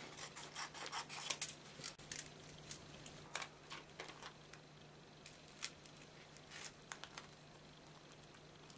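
Aluminium foil and self-adhesive plastic book covering being handled, peeled and pressed down by hand: short crinkles and rustles coming irregularly, thickest in the first four seconds, over a faint steady low hum.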